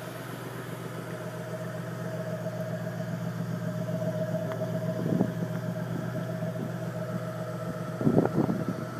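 2006 Ford Mustang GT's turbocharged 4.6-litre V8 idling steadily, with a few brief louder sounds near the end.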